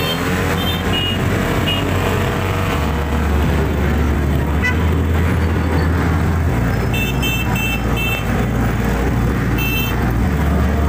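Several motorcycles and scooters riding past with their engines running, and horns beeping in short quick runs a few times.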